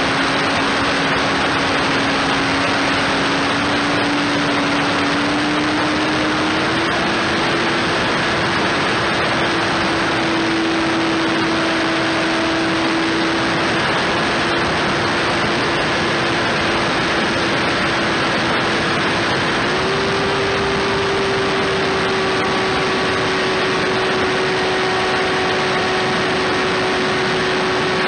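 Electric motor and propeller of a FliteTest Bloody Wonder RC plane, heard from an onboard camera: a steady whine under heavy wind rush, stepping up in pitch about seven seconds in and again about twenty seconds in as the throttle is raised.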